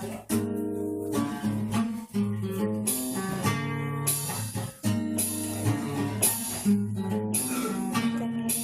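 Acoustic guitar playing chords in a steady rhythm, each chord struck sharply and ringing on.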